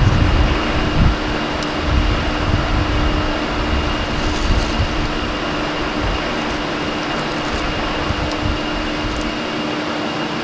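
Steady mechanical hum with a faint held whine, like a fan or compressor running. Low wind buffeting on the microphone fades out over the first second.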